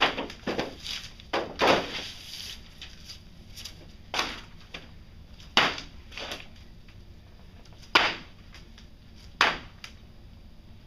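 Repeated slaps of a charcoal-blackened soft object thrown against a sheet of paper, each hit short and sharp with a little brushing after it. There are several quick hits in the first two seconds, then one about every second and a half.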